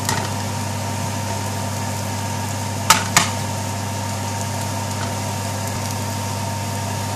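A steady low hum throughout, with two sharp clinks of a metal spoon against a frying pan about three seconds in, a fraction of a second apart, while onions and spices are stirred in the pan.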